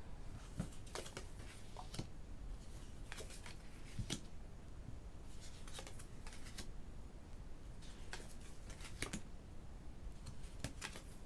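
Tarot cards being flipped over and laid onto piles by hand, one after another: faint, irregular swishes and soft taps of card on card.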